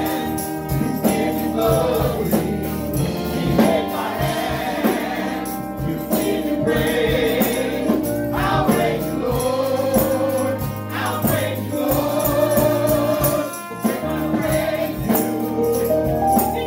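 Live gospel worship song: a woman sings lead with a group of backing singers, over instrumental accompaniment with a steady percussion beat.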